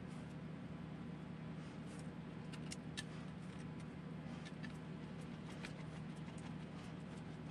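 Steady low background hum, with a few faint, light clicks of small plastic and metal parts of a 1/8-scale RC buggy chassis being handled and fitted; the sharpest click comes about three seconds in.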